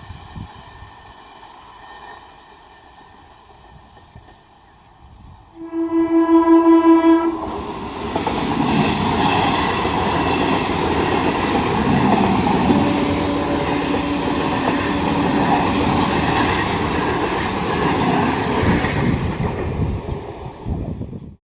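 A train horn sounds once, loud, for about a second and a half, after a few seconds of faint steady hum. A train then passes close by with a loud, continuous rush of wheels and carriages, a steady tone standing out in it for a few seconds midway. The sound cuts off abruptly near the end.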